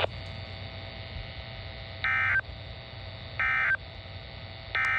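NOAA Weather Radio SAME end-of-message code: three short bursts of data tones, about one and a half seconds apart, marking the end of the weekly test broadcast. Between the bursts a steady hum with faint steady tones runs underneath.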